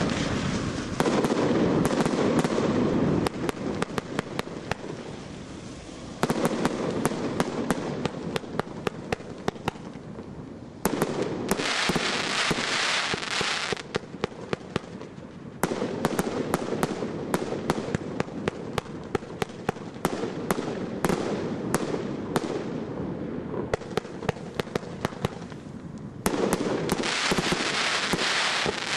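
Absolute Fireworks 'Essential 49' multi-shot firework cake firing its shots in sequence. There are many sharp reports in quick runs as shots launch and burst, with stretches of dense hiss between them, loudest about a second in, near the middle and near the end.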